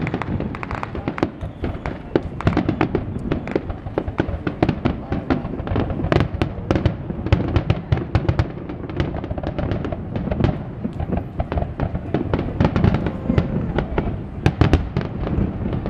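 Aerial fireworks shells bursting in close succession, a dense run of bangs and crackles.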